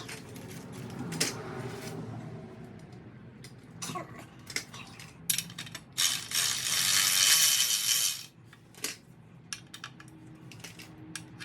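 Steel flywheel bolts and tools clinking as bolts are started into tight holes in a flywheel, with scattered sharp metal clicks and one loud rasping stretch of about two seconds in the middle.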